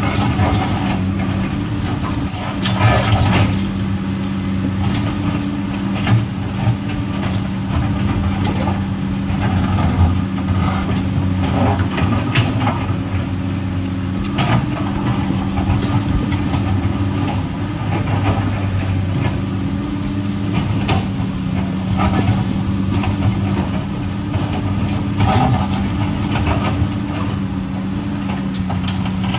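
Komatsu PC210LC hydraulic excavator's diesel engine running steadily under working load, with frequent irregular knocks and clatter as its bucket shoves and drops rock.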